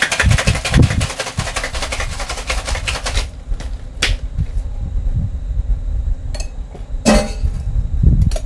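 Ice rattling inside a metal cocktail shaker tin as it is shaken rapidly, stopping about three seconds in. A few separate metal clinks and knocks follow, the loudest about seven seconds in.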